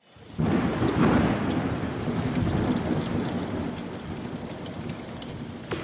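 Rain-and-thunderstorm sound effect. A thunderclap breaks about half a second in and rumbles on, slowly fading under steady rain. Music cuts in right at the end.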